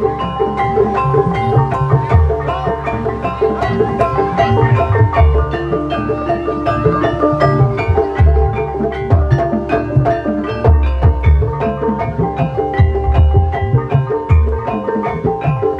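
Javanese gamelan-style music accompanying an ebeg dance: mallet-struck keyed instruments play busy, rhythmic melodic lines over repeated low drum strokes.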